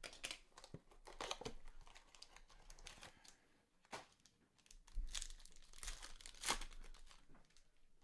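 Baseball trading-card packs being torn open, their wrappers crinkling and tearing in irregular rustles, loudest about five seconds in.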